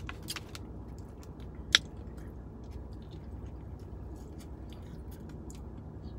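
A person biting into and chewing a breaded fried flounder sandwich close to the microphone, with small wet mouth clicks, over a low steady hum. A single sharp click stands out a little under two seconds in.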